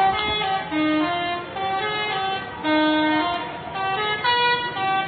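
Indonesian bus 'telolet' musical horn playing a tune: a run of loud, held horn notes stepping up and down in pitch.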